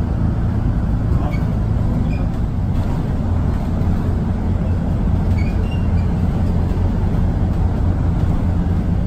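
Steady low rumble of engines and machinery on an airport apron, with no pauses.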